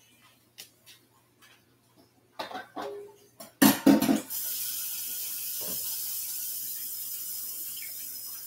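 A few light clicks and knocks, then a loud clatter a little under four seconds in, after which a kitchen tap runs steadily into the sink.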